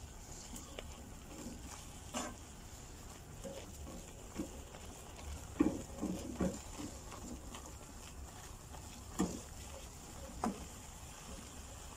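Wooden spatula stirring a dry, crumbly flour mixture in a metal pan: faint scraping with a few soft knocks against the pan.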